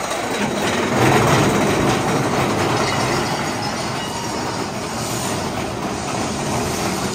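Big Thunder Mountain Railroad mine-train roller coaster running along its track, a steady noise of wheels on rails, loudest about a second in.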